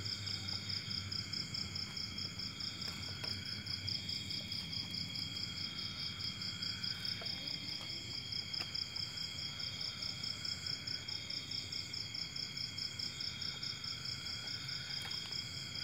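Crickets chirping in a fast, continuous trill, with a second, lower insect call coming in phrases every few seconds. A low steady hum runs underneath.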